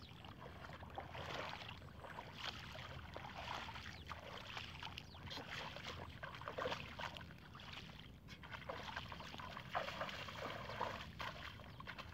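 Shallow floodwater sloshing and splashing as bare feet wade through it and hands grope through the flooded grass: a run of small, irregular splashes.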